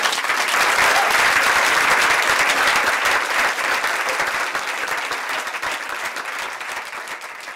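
An audience applauding, a dense patter of many hands clapping that swells at once and slowly tapers off.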